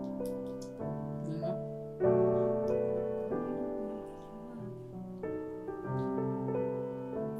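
Background piano music: slow held notes and chords, with a louder chord struck about two seconds in.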